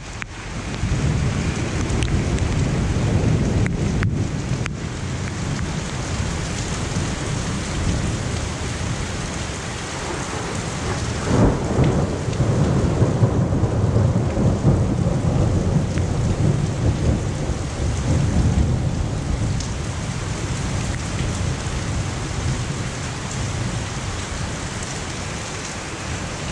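Heavy rain of a sudden summer thunderstorm pouring down steadily, with thunder rumbling underneath, loudest about halfway through.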